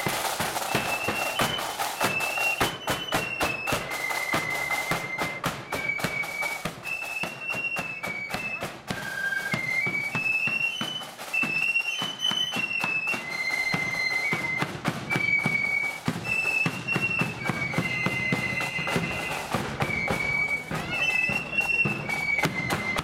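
Blood-and-thunder marching flute band playing a tune: a shrill melody on flutes over rapid, dense side-drum strokes and a bass drum.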